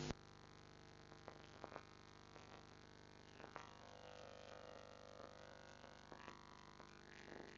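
Near silence: a faint, steady electrical mains hum with a few faint ticks, the fight's sound having dropped out.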